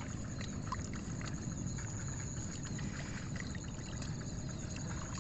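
Muddy paddy water sloshing and dripping in small splashes as rice seedlings are pulled by hand from the flooded seedbed, over a steady low rumble.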